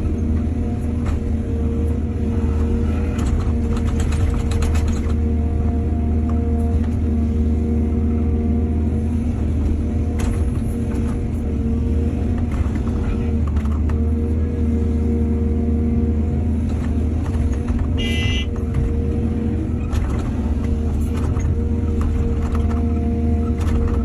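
Excavator's diesel engine running steadily under load, with scattered clattering knocks. There is a brief high squeal about three-quarters of the way through.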